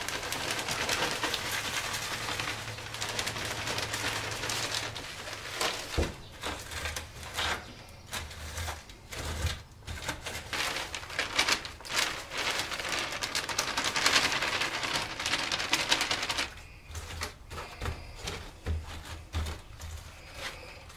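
Potting soil poured from a plastic bag into a plastic seed-starter tray, the bag crinkling and the soil pattering into the cells, then hands spreading and pressing the soil across the tray with rustling and scraping.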